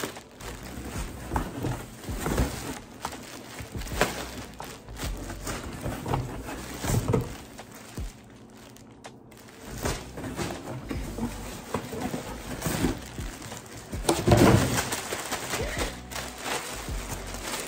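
Clear plastic garment bags crinkling and a cardboard shipping box rustling as bagged clothing is pulled out and handled, in uneven bursts with a louder patch near the end.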